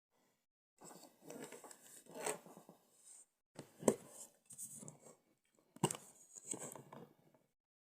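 Hands working on a tripod: irregular rustling and tearing noises, with two sharp knocks about four and six seconds in.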